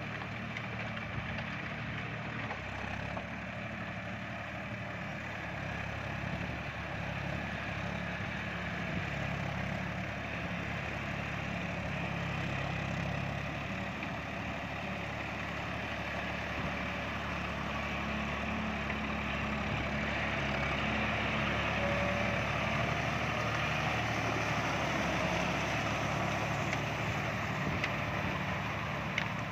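John Deere 5310 tractor's three-cylinder diesel engine running steadily under load while its Shaktiman rotavator churns through flooded paddy mud and water. It grows a little louder in the second half.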